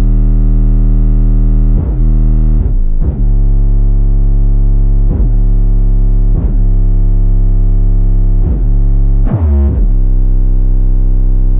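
Loud bass-heavy electronic music: a subwoofer test track of long, deep synthesizer bass notes, each held for a second or two before sliding to the next.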